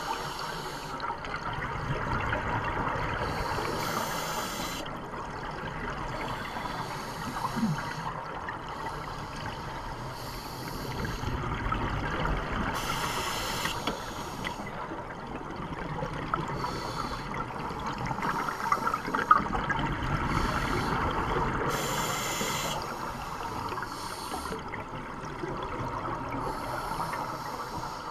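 Scuba divers breathing through regulators underwater: a short hiss on each inhale and a burst of bubbling on each exhale, repeating every few seconds over a steady watery rumble.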